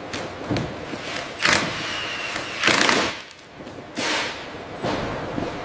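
Work noises: a run of dull thuds and short hissing rushes, roughly one a second.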